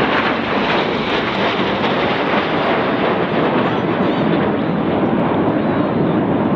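A formation of BAE Hawk T1 jets flying past, their Adour turbofan engines making a loud, steady rushing jet noise.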